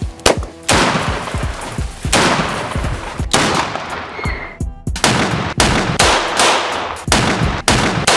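Gunfire: a dozen or so loud shots at irregular intervals, each trailing off in a long echo.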